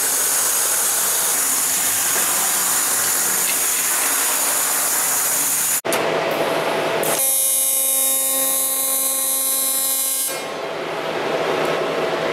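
A steady hiss of workshop noise for about six seconds. Then, after a cut, a steady electric buzz of a TIG welding arc on aluminium lasts about three seconds, starting about seven seconds in.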